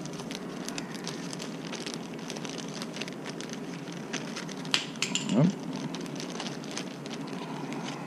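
Thin clear plastic parts bag crinkling and crackling in the hands as small parts are fished out of it, with a few louder crackles just before the middle.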